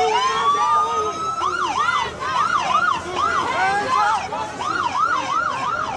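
Police car siren sounding close by: a wail that climbs in pitch for about the first second and a half, then switches to a fast yelp of about three rising-and-falling sweeps a second.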